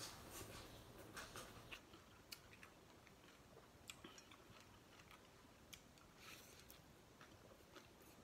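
Faint chewing and slurping of rice-vermicelli noodles, with a few sharp light clicks scattered through.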